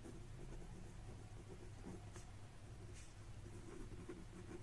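Faint scratching of a pen writing on paper, with two light clicks about two and three seconds in.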